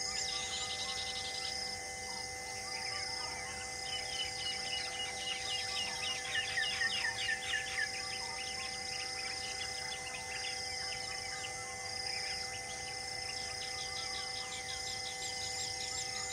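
Birds chirping, with a dense run of quick falling calls in the middle, over a steady high chorus of insects repeating in short regular pulses. Faint steady tones run underneath.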